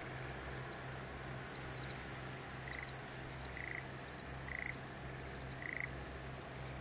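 Frogs calling: four short pulsed croaks about a second apart in the second half, each a little louder than the last, with fainter, higher chirping calls scattered through and a low steady hum beneath.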